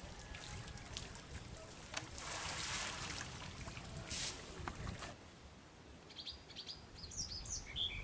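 Water splashing and swishing, with a few small knocks, as a man wades over a bamboo-framed lift net in shallow water, loudest between about two and four seconds in. After about five seconds it gives way to small birds chirping.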